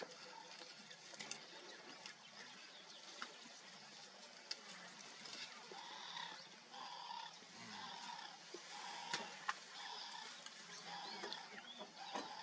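Faint outdoor background with a short two-pitched animal call repeated at roughly even spacing through the second half, and scattered faint clicks.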